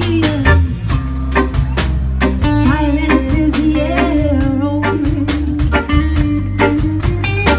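A live band playing a song: two electric guitars, an electric bass and a drum kit, with a woman singing into the microphone.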